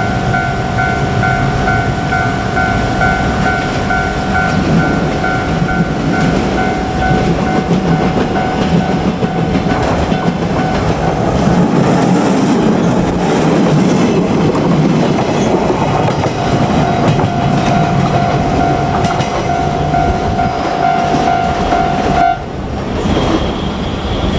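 Japanese level-crossing warning bell ringing in a steady repeating ding as a JR Kyushu 817 series electric train passes through the middle, its wheels clattering over the rail joints. The bell cuts off suddenly near the end.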